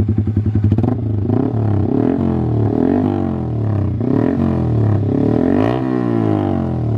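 Yamaha R15 V3's 155 cc single-cylinder engine through a Proliner Carbon Short TR-1R aftermarket exhaust with the dB killer removed. It idles with an even pulse for about a second, then is blipped again and again, each rev rising and falling, with a loud open exhaust note.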